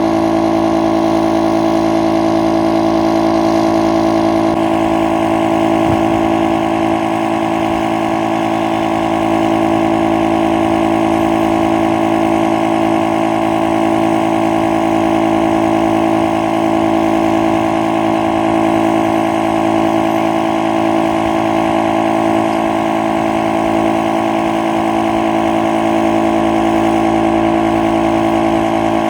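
A motor running steadily at one constant pitch, with no change in speed.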